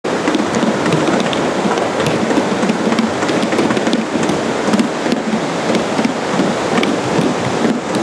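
Washed-up plastic jerry cans and buckets struck with sticks as improvised drums: a fast, uneven run of knocks and low thuds, over the steady wash of surf.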